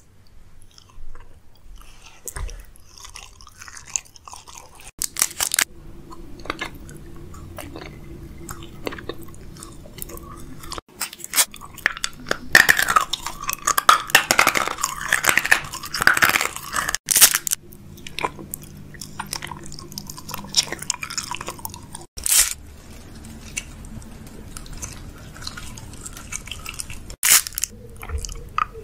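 Close-miked eating of sweets: biting and chewing, with a long spell of loud crunching about halfway through. The sound breaks off abruptly several times as one short eating clip cuts to the next.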